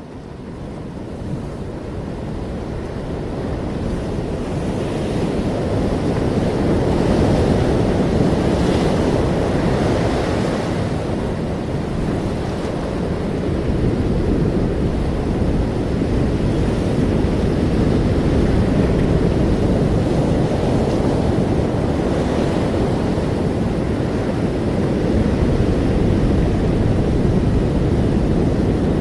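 Ocean waves washing onto a shore, a continuous low rushing with gentle swells and occasional brighter hissing washes, fading in over the first several seconds, with some wind rumble on the microphone.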